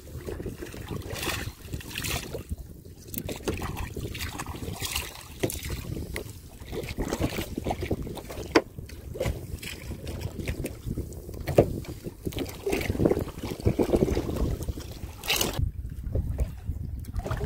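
Water splashing and sloshing around a small boat, with scattered knocks and a low wind rumble on the microphone, as a fishing net is hauled in by hand.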